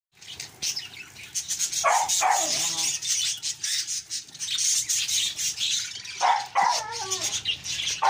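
A flock of budgerigars chattering, with rapid wing flutters and splashing as they bathe in trays of wet grass. Louder calls that fall in pitch stand out about two seconds in and again near the end.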